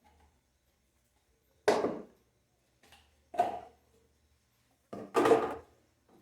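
Kitchen clatter of tidying up: three loud, sudden knocks about a second and a half apart, like cupboard doors, drawers or dishes being put away, the last one doubled.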